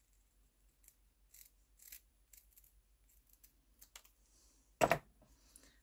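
Small craft scissors snipping paper: a run of short, separate cuts over the first four seconds, then one much louder knock about five seconds in.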